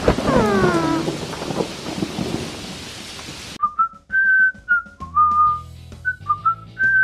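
Rain sound effect with thunder and a falling, wailing cry at the start. About three and a half seconds in it cuts off sharply and gives way to a whistled tune over a bass line.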